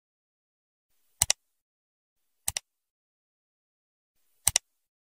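Three sharp double clicks: the first about a second in, the second about a second later, and the third near the end, each two quick clicks close together over dead silence.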